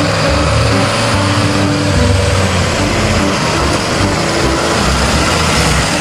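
Yellow school bus engine running steadily as the bus drives toward and past.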